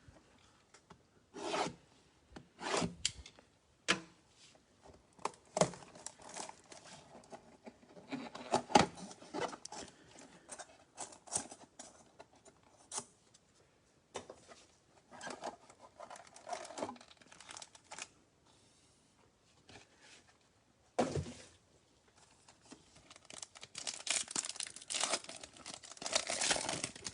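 Cardboard and wrapper of a Bowman Chrome mega box of baseball cards being torn open and handled: tearing, rubbing and crinkling in irregular strokes, busier near the end as the packs come open.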